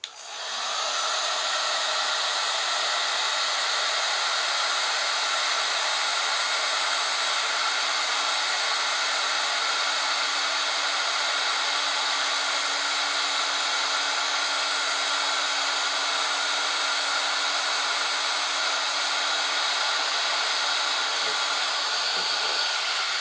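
A hot-air soldering tool blows steadily, a loud even hiss with a steady hum underneath; the hum rises in pitch for a moment right at the start as the blower comes up to speed. The hot air is reflowing solder to fix a replacement capacitor onto the laptop's logic board.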